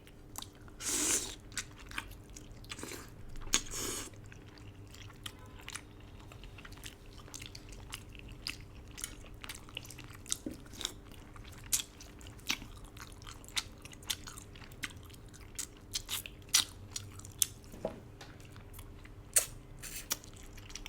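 Close-miked chewing of duck-noodle soup: a steady run of sharp, wet mouth clicks, with two short louder rushing sounds in the first four seconds.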